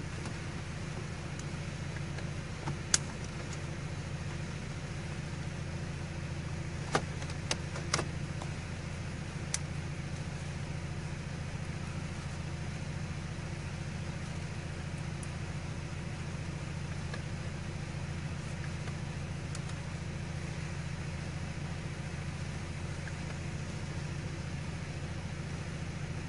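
Car engine idling steadily with a low hum. A handful of sharp clicks come between about three and ten seconds in, the loudest about three seconds in.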